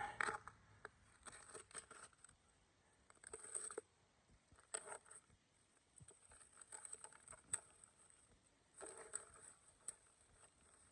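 Faint rustling and crinkling of plastic sheeting in several short bouts as it is cut and pulled away.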